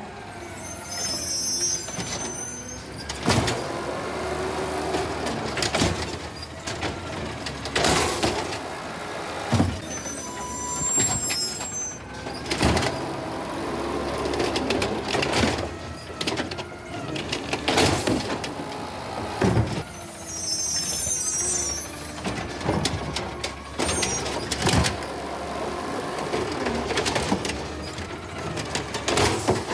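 2016 Peterbilt 320 automated side-loader garbage truck running while its hydraulic arm lifts and tips green-waste carts, with a series of loud bangs as the cart is shaken out and its lid slams open. Birds chirp briefly in the background a few times.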